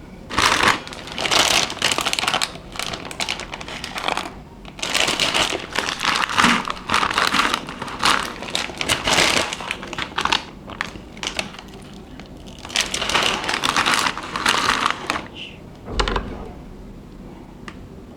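Plastic instant-noodle packaging crinkling as it is handled, in three long bursts, with a soft low thump near the end.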